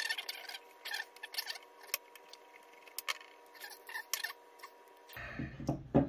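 Light, irregular metal clicks and scrapes from a screwdriver working in the cast frame of a vintage Ludwig Speed King bass drum pedal during disassembly. About five seconds in, a low handling rumble starts as the frame is picked up, ending in a sharper knock.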